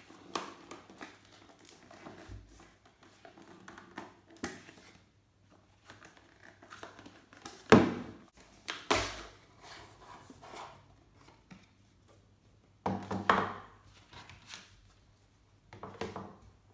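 Clear plastic and cardboard camera retail box being handled and opened: rustling, scraping and clicks, with two sharp knocks about eight and nine seconds in and a burst of scraping around thirteen seconds.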